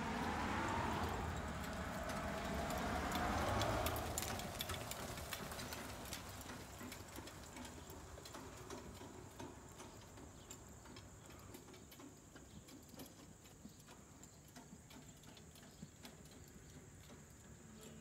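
A motor vehicle passing by, its pitch falling as it goes, fading out within the first four seconds. Faint scattered ticks and clicks follow.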